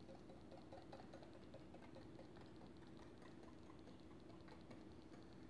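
Wire whisk beating banana-and-egg batter in a glass bowl: faint, quick, light ticks of the whisk against the bowl, about four or five a second.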